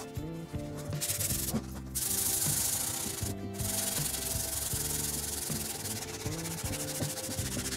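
Wooden knife block being hand-sanded with a sheet of sandpaper: steady back-and-forth rasping that starts about a second in, with two brief pauses.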